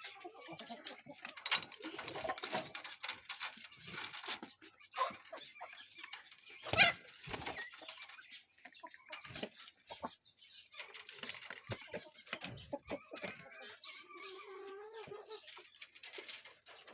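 Pheasants moving about in their pen: scuffling and rustling, wing flaps with a louder bump about seven seconds in, and a short low call near the end.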